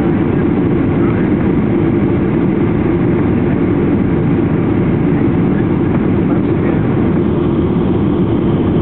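Steady cabin noise inside a Boeing 737-800 descending on approach: the hum of its CFM56-7B engines and the rush of air over the fuselage and wing, heard from a seat behind the wing. A steady low drone with a constant hum just under 400 Hz, no change in pitch or level.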